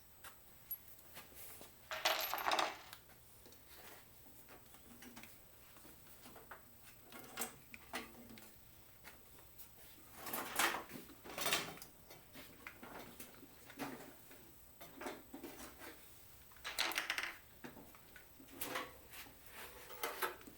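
Intermittent light metallic clinks and clatter of objects being handled, in a few short clusters several seconds apart.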